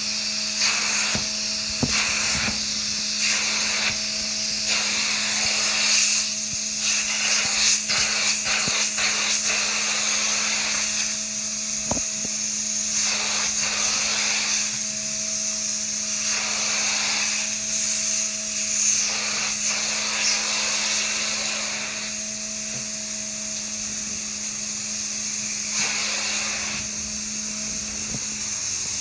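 Upholstery-cleaning extraction machine running steadily with a constant hum and high hiss, its suction pulled through a handheld upholstery tool on a hose. The tool is drawn over the sofa fabric in repeated strokes, each stroke a rush of suction noise lasting a second or two.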